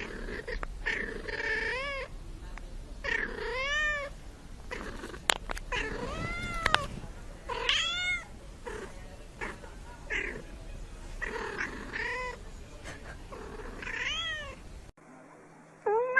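Domestic cat meowing repeatedly, about eight calls a second or two apart, each arching up and then down in pitch, which the uploader takes for a contented cat saying it feels good. A couple of sharp clicks come in the middle.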